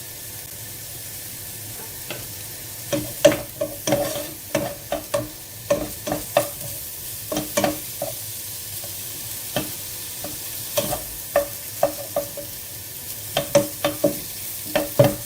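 Chorizo and onion sizzling in a frying pan as they are stirred, with a utensil knocking and clinking against the pan many times in irregular clusters.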